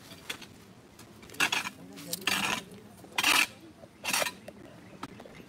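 Hoes and shovels scraping and dragging loose earth, four strokes roughly a second apart, as soil is worked back into a grave.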